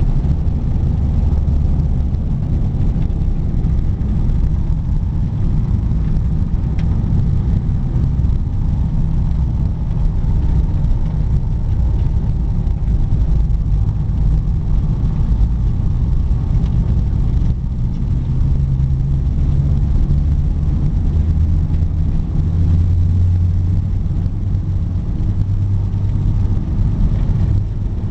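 1947 Bombardier snowmobile's engine running under way, heard from inside its cabin: a loud, steady low drone whose pitch shifts a few times in the second half.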